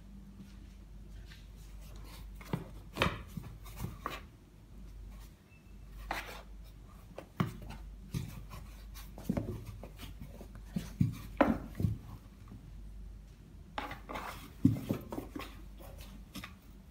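An adult cat and a kitten scuffling inside a cardboard box: claws scratching and scraping at the cardboard and bodies bumping its sides in irregular knocks, a few of them sharper and louder in the middle and near the end.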